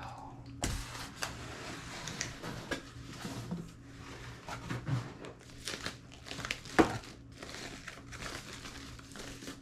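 Packaging crinkling and rustling in irregular crackles as a boxed camcorder and its accessories are unwrapped, with one louder snap about seven seconds in.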